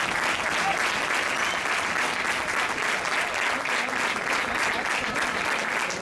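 Football stadium crowd applauding: many hands clapping in a steady, dense patter.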